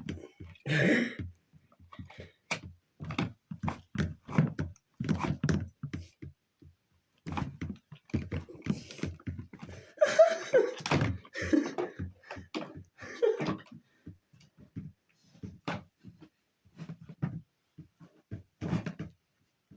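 Irregular knocks and thunks from a vacuum cleaner being handled and knocked about, with its motor not running. A cluster of short pitched sounds comes about ten seconds in.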